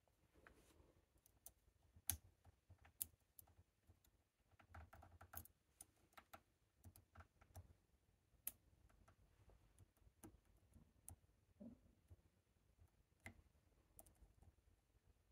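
Faint, irregular clicks and light scraping of a steel hook pick working the pin stacks of a Chicago Lock Co tubular lock held under a tension tool, with a few sharper clicks standing out about two and three seconds in.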